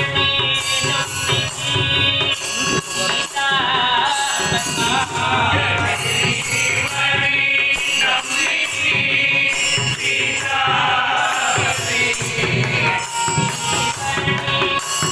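Group devotional bhajan: men singing together in unison to a harmonium, with small hand cymbals struck in a steady beat.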